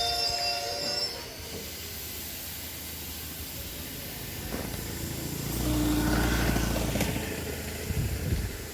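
A train running on the track: high wheel squeal dies away about a second in, then a steady rail rumble that swells louder past halfway, with a few sharp knocks near the end.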